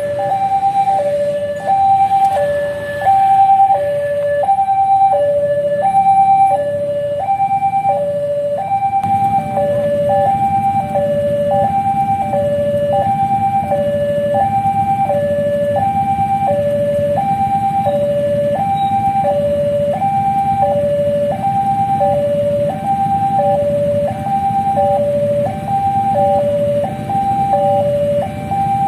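Railway level-crossing warning alarm sounding its electronic two-tone 'teng-tong', alternating steadily between a higher and a lower tone about every 0.7 seconds, which signals that a train is coming. From about nine seconds in, a steady low rumble runs underneath it.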